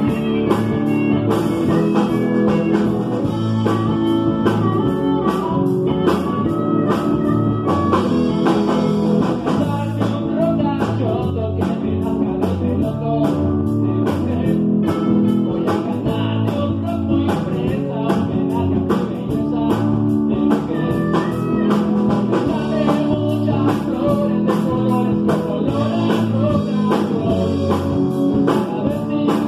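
Live band playing a blues-rock song: drum kit, electric bass and electric guitar, with singing over them.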